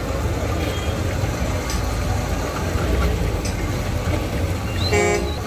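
Street traffic with engines running in a steady low rumble, and a short horn beep about five seconds in.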